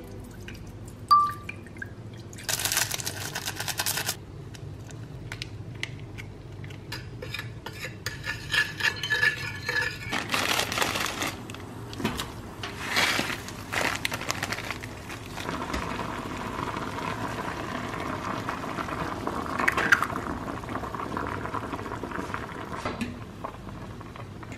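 Water poured into a small saucepan, then pot-and-utensil clatter as instant noodles are cooked: the dry noodle block goes into the boiling water and a fork stirs the noodles in the bubbling pot.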